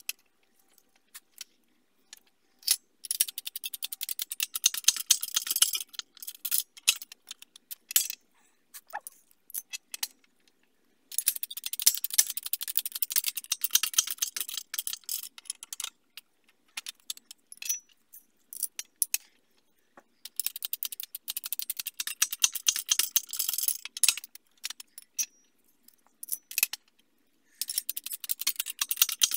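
Shop hydraulic press being worked to press new ARP extended wheel studs into a Pontiac GTO front wheel hub: rapid metallic clicking and rattling in four bursts of a few seconds each, with quiet gaps between them.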